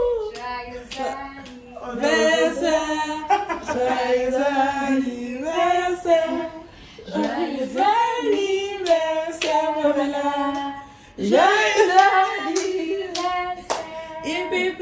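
Several women singing a song together, with hand claps about once a second.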